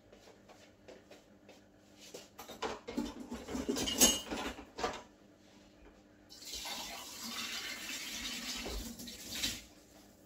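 Cup and dishes clattering, with one sharp knock about four seconds in, then a kitchen tap running for about three seconds before it is shut off.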